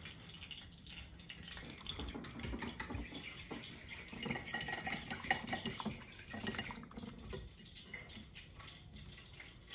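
Light kitchen clatter: small clinks and taps of a fork and dishes, with a faint hiss that fades about seven seconds in.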